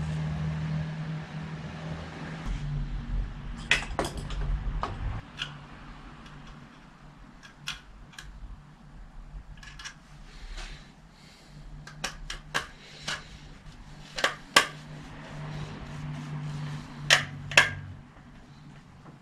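Irregular sharp clicks and taps of small plastic and metal parts being handled and fitted as a bicycle's rear LED light is worked on with a small hand tool, over a steady low hum.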